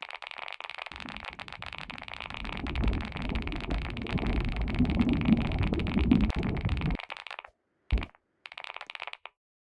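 Fast, continuous typing on a low-profile chocolate (chiclet-style) keyboard, a dense run of key clicks with a low rumble beneath, stopping about seven and a half seconds in, followed by two short bursts of keystrokes.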